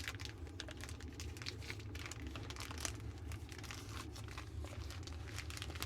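Plastic bag crinkling in the hands in many small, irregular crackles as it is worked and pulled open, over a steady low hum.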